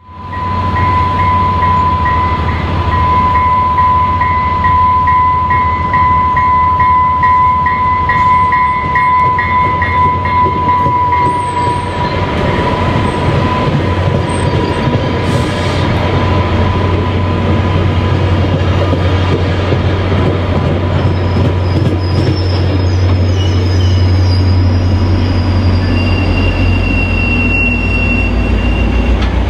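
UTA FrontRunner commuter train arriving: a bell rings with regular strokes for the first ten seconds or so while the bi-level cars roll past. Brakes squeal in the second half as it slows, and the MPI MP36PH-3C diesel locomotive's engine grows louder and deeper as it comes by near the end.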